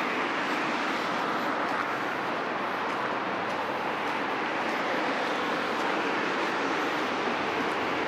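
Steady noise of road traffic on the overpass roadway: an even hiss of passing cars with no single vehicle standing out.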